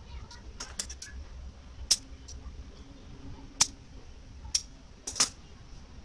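Light, sharp metallic clicks and taps from thin steel razor-blade pieces being handled, about eight at irregular intervals, the loudest near two seconds in, about three and a half seconds in, and a close pair just after five seconds.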